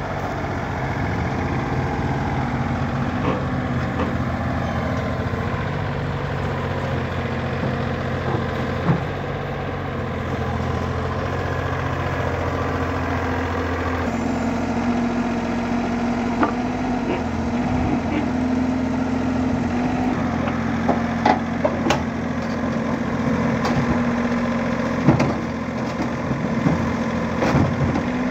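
Komatsu mini excavator's diesel engine running steadily as the machine crawls onto a flatbed trailer, its note stepping up about halfway through. Sharp clanks and knocks from the steel tracks on the trailer deck come now and then in the second half.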